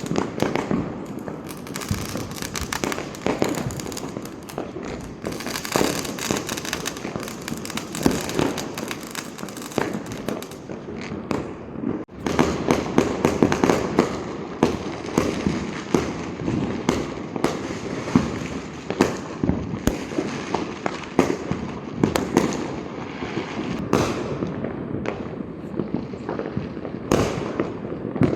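Diwali firecrackers and fireworks going off all around, many at once: a dense, continuous crackle of pops and bangs. About twelve seconds in there is a brief lull, after which it grows louder.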